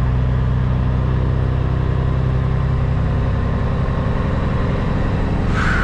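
Caterpillar C15 diesel of a Peterbilt 379 running at low revs, heard from inside the cab as the rig creeps forward; the engine note shifts about halfway through. A short, high, falling squeak comes just before the end.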